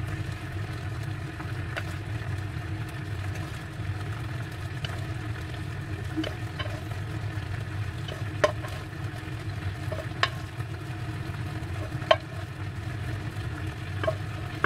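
A wooden spoon scraping cooked minced pork out of a pan into a ceramic baking dish, with several sharp knocks of the spoon against the pan, the loudest about halfway through and near the end; a steady low hum runs underneath.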